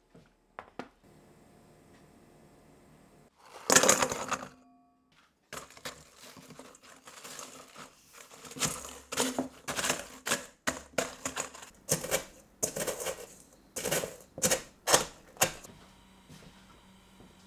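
A wooden rolling pin pounds digestive biscuits in a stainless steel bowl, crushing them to crumbs. It makes a run of sharp knocks and crunches, roughly one and a half a second, after a louder clatter about four seconds in.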